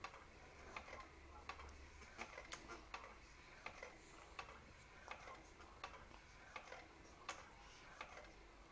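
Faint, short clicks at uneven intervals, roughly one or two a second, over quiet room tone.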